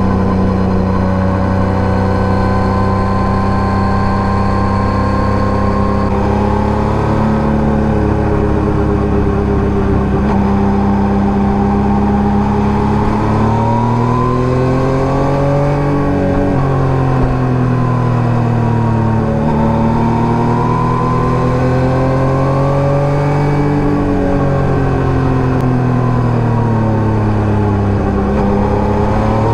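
Yamaha MT-09 Gen 3's 890 cc inline three-cylinder engine through an SC Project STR-1 exhaust, under way. It holds steady revs for the first several seconds, then revs rise and fall a few times as the bike accelerates and rolls off the throttle.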